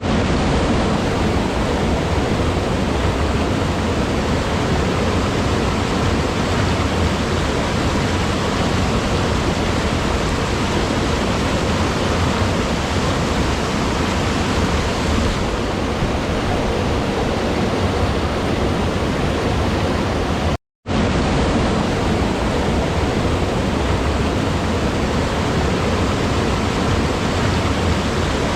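Steady rushing of flowing water, an even hiss without a rhythm. It cuts out to silence for a split second about twenty seconds in, then resumes unchanged.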